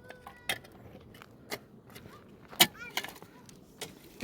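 A string of sharp clicks and knocks, the loudest about two and a half seconds in, with a brief metallic jingling ring near the start.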